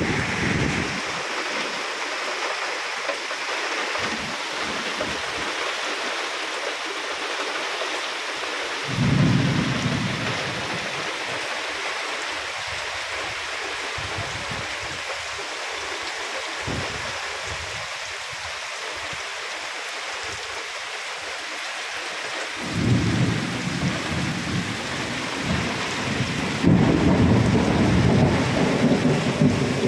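Heavy rain pouring steadily in a nor'wester thunderstorm. A deep rumble swells about nine seconds in, and again from about twenty-three seconds on.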